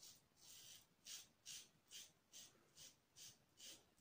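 Mühle R106 open-comb safety razor with a Gillette Wilkinson Sword blade scraping through lathered stubble on the cheek during the first pass, in short, quick strokes about two or three a second. Faint.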